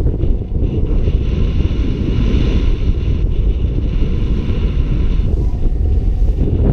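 Wind rushing over the microphone of a camera on a paraglider in flight: a loud, steady low rumble of buffeting wind noise with a fainter hiss above it.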